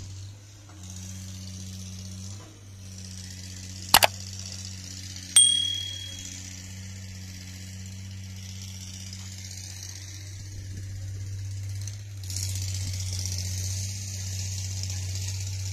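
A subscribe-button sound effect: a single mouse click about four seconds in, then a short bright bell ding about a second and a half later, over a steady low hum.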